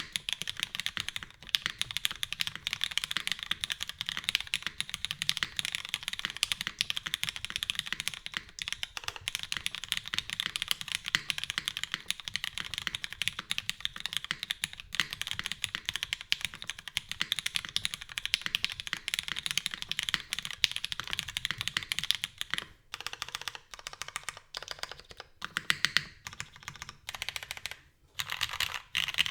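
Continuous fast typing on a Singa Jaguar V2 custom mechanical keyboard with lubed, filmed Cherry MX Black linear switches, a top-mounted aluminium plate and GMK keycaps: a dense, steady stream of keystroke clacks, broken by a couple of brief pauses near the end.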